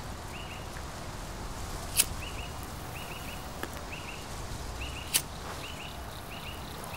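Bubblegum bubbles popping: two sharp, short pops, about two seconds in and again about five seconds in. A small bird chirps in quick pairs over and over behind them.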